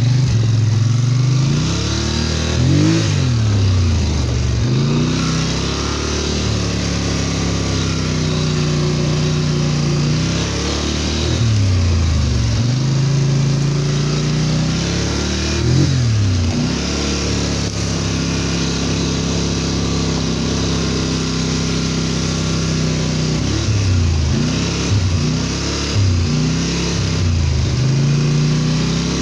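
Polaris Sportsman XP 850 EFI ATV's twin-cylinder engine under way on a trail, revving up and dropping back again and again as the throttle is worked, with steadier cruising stretches between.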